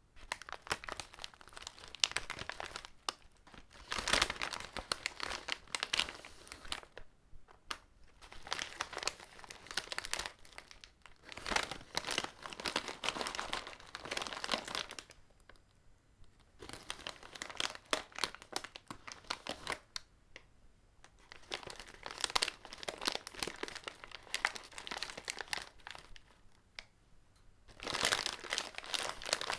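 Paper bag being crumpled and crinkled by hand in several separate spells of dense crackling, with short pauses between them.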